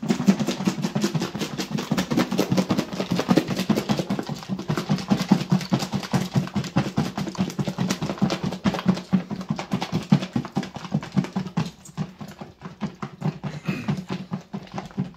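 A lidded plastic food container being shaken hard, with waffle fries and chicken nuggets inside thudding and rattling against its walls in a rapid, steady rhythm. Near the end the shaking eases off and gets quieter.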